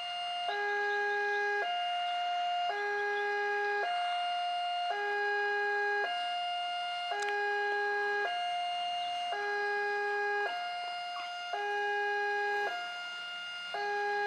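Railway level-crossing warning alarm sounding an electronic two-tone signal, switching between a lower and a higher tone about every second, which warns that a train is approaching the crossing.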